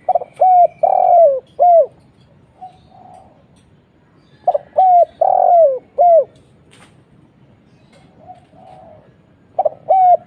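Spotted dove cooing: a four-note phrase, two short coos, a long falling coo, then a short coo, repeated about every five seconds. Fainter, softer notes come between the phrases.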